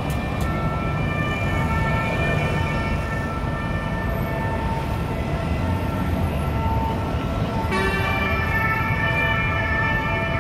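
Dense road traffic running steadily, with an emergency vehicle's two-tone siren sounding over it and growing louder about eight seconds in.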